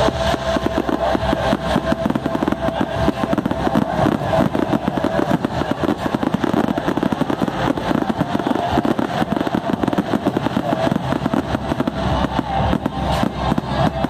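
Fireworks display going off without a break: a dense run of rapid crackles, pops and bangs from aerial shells and ground fountains over a low rumble.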